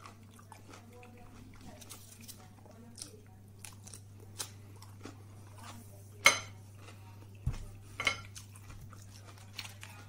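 Close-up chewing of raw cucumber: small wet crunches and mouth clicks, with two louder, sharp crunches a little after halfway through.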